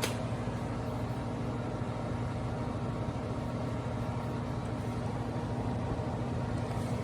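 De'Longhi Pinguino portable air conditioner running in cooling mode just after its compressor has kicked in: a steady hum with a low tone under the fan's air noise.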